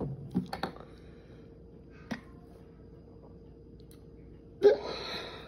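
A few small clicks and taps in the first second, then, about four and a half seconds in, a short loud breathy noise from a person's mouth and throat: a reaction of disgust at the taste of a drink.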